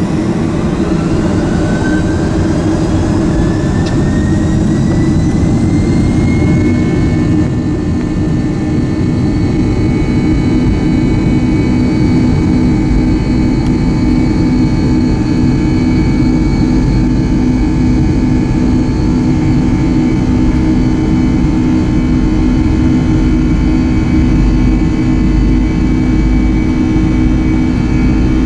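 Boeing 757-200's Pratt & Whitney turbofan, heard from the cabin, spooling up to takeoff thrust: a rising whine over the first seven seconds or so, then a steady buzz-saw drone of many tones, the sound of the fan blade tips running supersonic. Runway rumble of the takeoff roll grows beneath it about halfway through.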